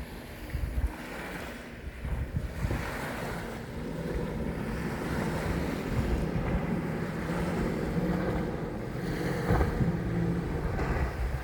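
A small motorboat under way: its engine hums steadily under wind buffeting the microphone and water rushing and splashing past the hull.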